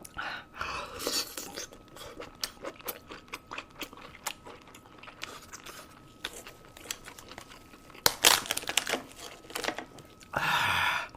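Close-miked crunching and crinkling as food is handled: a run of sharp clicks and crackles, with a louder crunching cluster about eight seconds in and another dense burst near the end.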